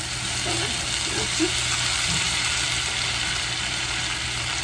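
Sliced turkey sausage and onions sizzling steadily in a hot skillet as handfuls of sliced raw cabbage are tipped in on top from a cutting board.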